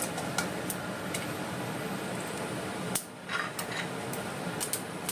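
Mustard and cumin seeds frying in hot oil in a kadai: a steady sizzle with scattered sharp pops as the mustard seeds crackle, the tempering stage of the dish.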